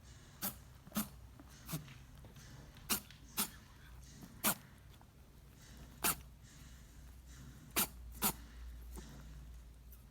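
Pet rabbit sneezing hard and repeatedly, about nine short sharp sneezes, several coming in quick pairs. The owner takes it for water having got into its nose.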